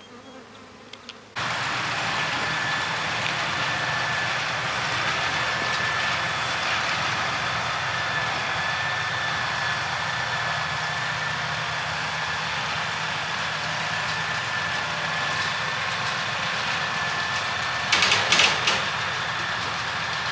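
A machine's engine running steadily, starting abruptly about a second and a half in, with a steady high whine over it.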